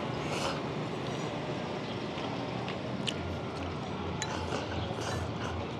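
A few light clicks and clinks of eating utensils against a bowl or pot over a steady background hiss, with a low pulsing hum in the second half.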